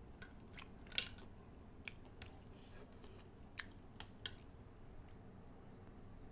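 Eating sounds: scattered light clicks and taps of a spoon picking through a metal tray of papaya salad with pickled crab and shellfish, with one louder click about a second in.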